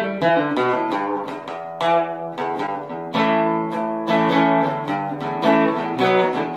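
Instrumental intro music: guitar chords strummed and plucked, each chord ringing and fading before the next.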